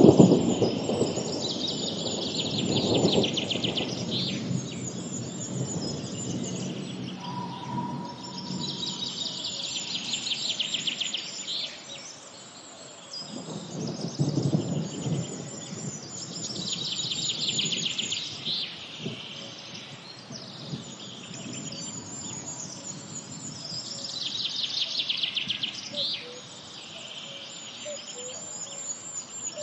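Birdsong ambience: a bird's rapid trilling phrase that comes back about every seven or eight seconds, over low rumbles near the start and again about halfway through.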